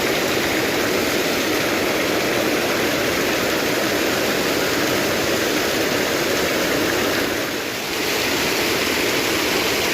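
River water rushing steadily over rocks, a constant loud wash that dips slightly for a moment about seven and a half seconds in.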